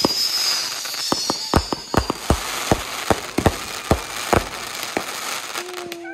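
Fireworks going off: a rapid, irregular string of sharp bangs and pops over continuous crackling, with a high whistle fading out in the first second.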